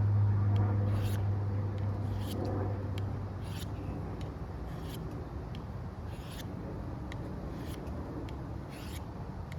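Knife blade drawn across a fine sharpening stone in short scraping strokes, about one every second and a bit, seven in all. A low steady engine-like hum fades away over the first few seconds.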